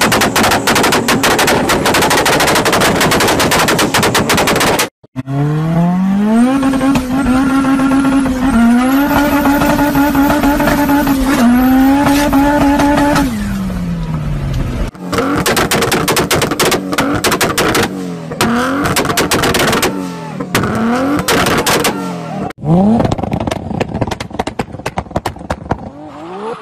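Modified car exhausts in quick succession: a rapid string of loud exhaust pops and backfire cracks, then an engine revving hard and held high, its pitch dipping and climbing again several times before falling away. More crackling pops follow, and near the end an engine revs up.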